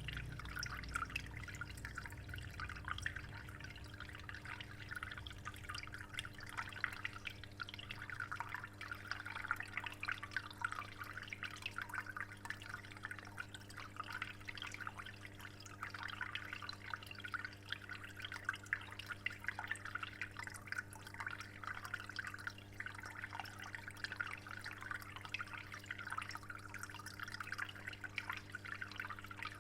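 Water in an aquarium trickling and dripping steadily, with many small splashes, over a low steady hum.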